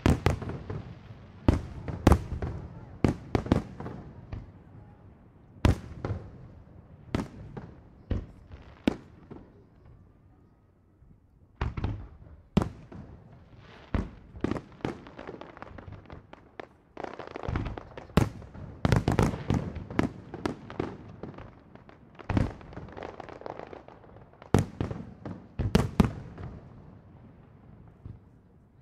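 Aerial fireworks shells bursting overhead, a long series of sharp bangs with echoing tails. There is a brief lull about ten seconds in, then a dense volley of bursts in quick succession.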